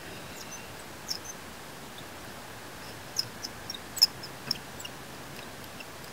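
Scattered sharp, high-pitched squeaks and clicks of a ratchet-driven torque multiplier turning a car wheel's lug nut, most of them bunched between about three and four and a half seconds in, the loudest near four seconds.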